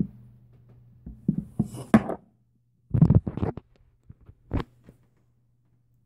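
Handling noise from a phone being moved: a series of short bumps and rubs against the microphone, bunched about three seconds in with one more a little later. A faint low steady hum runs underneath.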